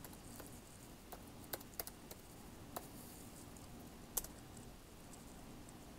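Quiet room tone with a handful of faint, irregular clicks, the sharpest about four seconds in.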